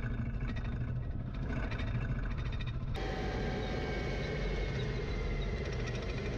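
Tanks driving on sand: a steady engine and track rumble. After a cut about three seconds in, an M1 Abrams tank's gas-turbine engine is heard close by, a faint high steady whine over the rumble.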